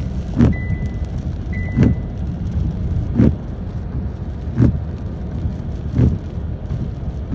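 Steady low rumble inside a car driving in hurricane rain, with a sharp thud about every second and a half, typical of windshield wipers on each sweep. A high beeping chime sounds once a second during the first two seconds.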